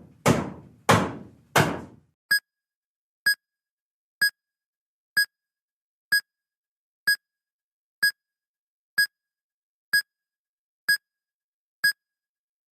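Cartoon sound effects: three quick hits that fade out over the first two seconds, then a short, high, pitched tick about once a second, like a clock ticking.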